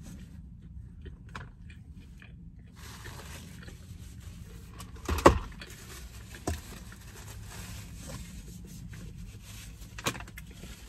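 A paper sandwich wrapper being crumpled and rustled in the hands. There is a sharp knock about five seconds in, the loudest sound, and smaller knocks shortly after and near the end.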